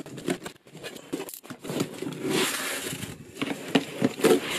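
A cardboard shipping box being opened by hand: crinkling and rustling of packing material and cardboard with scattered knocks, and a longer rustle about halfway through.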